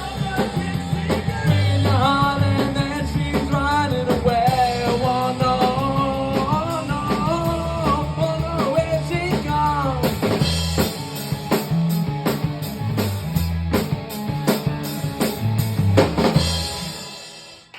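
Rock band playing the instrumental close of a song: a bending lead melody over steady bass and drum kit for the first half, then hard, dense drum hits for the last several seconds before the music stops near the end.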